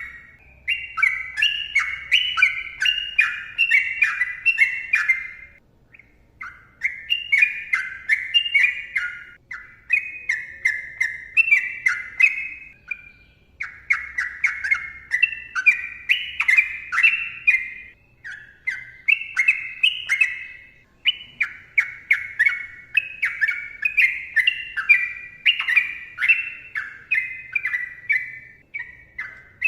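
Sooty-headed bulbul singing long, rapid phrases: quick runs of notes, each phrase lasting a few seconds, with short pauses between them.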